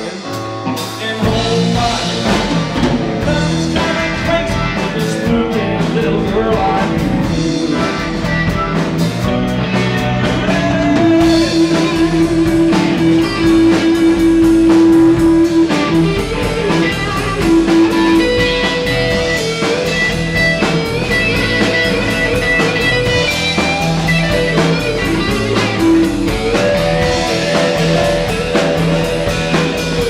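Live blues band playing an instrumental passage on electric guitar, bass guitar, drum kit and keyboard, with a long held note about eleven seconds in.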